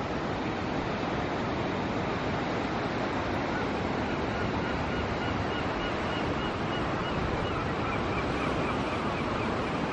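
Steady rush of sea water and waves at a harbour mouth, with wind buffeting the microphone and adding a low rumble.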